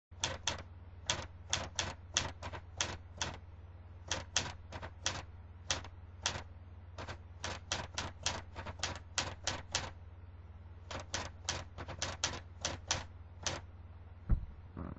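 Keys of an Underwood 450 manual typewriter striking in irregular runs of sharp clacks, a few a second with short pauses, over a steady low hum. A single low thump near the end is the loudest sound.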